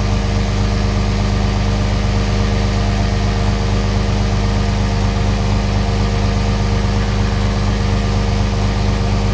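Idling diesel engine of a 2004 Dodge Ram 2500 together with a Harbor Freight Pittsburgh 12-volt portable air compressor (model 69285) running steadily as it inflates a truck tire, no longer cutting down now that the glow plugs have stopped drawing power. A loud, even running sound with no change.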